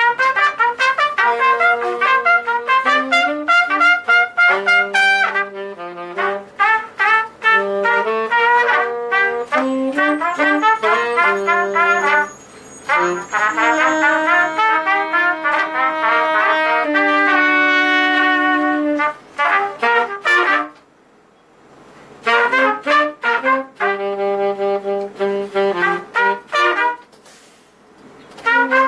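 Horn trio of saxophone and two trumpets playing a tune live, phrase by phrase with short breaks between phrases, the longest about two-thirds of the way through.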